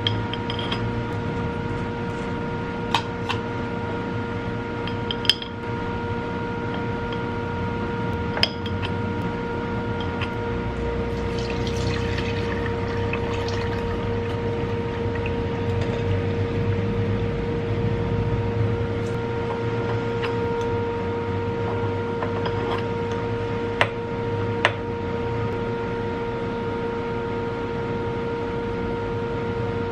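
Glass and metal kitchenware clinking a few times as cooking oil and fried fish flakes are strained through a mesh strainer into a glass bowl, with a soft pour of oil about twelve seconds in. A steady humming tone sits under it.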